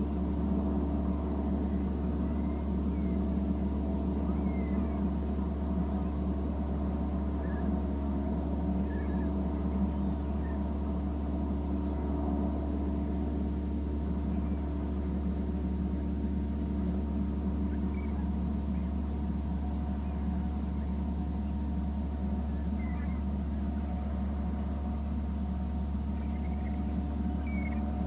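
A steady low hum made of several constant tones, with faint, scattered short calls from a flock of birds feeding on the water.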